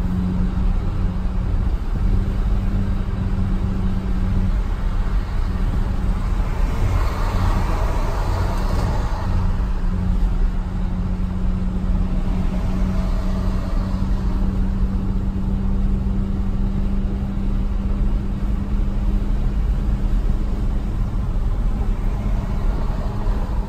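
Steady road and engine noise heard inside a car's cabin at highway speed: a low rumble with a steady hum, swelling into a louder rush for a couple of seconds about seven seconds in.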